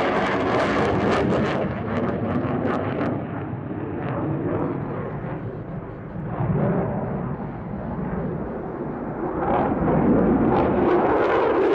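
F-22 Raptor's twin jet engines, a loud crackling rumble that eases off around the middle and builds again with more crackle over the last couple of seconds.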